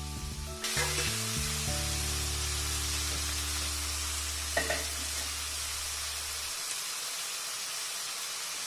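Chopped onions sizzling in hot oil with whole spices in a steel kadai, frying toward golden brown. A steady frying hiss that grows louder about half a second in.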